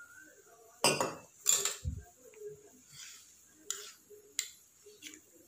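Steel spoon stirring spice powders into water in a small stainless-steel bowl: soft scraping with about four sharp clinks of metal on metal, and a dull thump about two seconds in.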